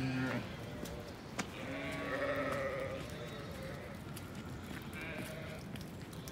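Zwartbles sheep bleating: a call ending just after the start, a longer bleat about two seconds in, and a fainter one about five seconds in.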